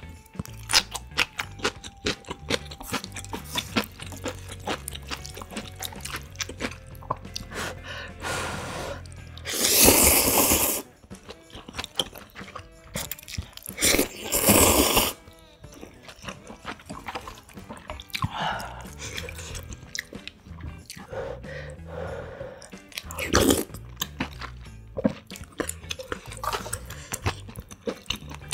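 Close-miked eating of spicy instant ramyun noodles: wet chewing with many small clicks, broken twice by long loud noodle slurps about ten seconds in and again about fourteen seconds in, with a shorter slurp later on.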